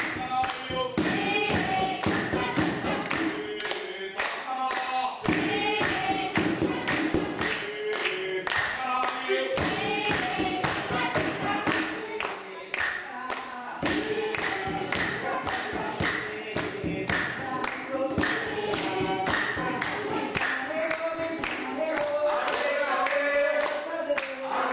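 A choir of voices singing a melody together over a steady rhythmic beat of sharp strikes.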